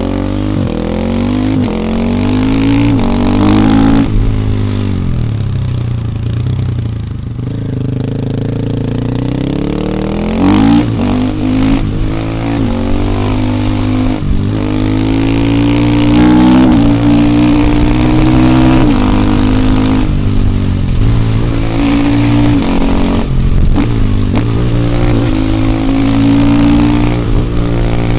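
KTM 450 EXC supermoto's single-cylinder four-stroke engine under way, revving up through the gears with the pitch climbing and then dropping at each shift. The revs fall off about a third of the way in and then build again, with more upshifts and steady high revs near the end.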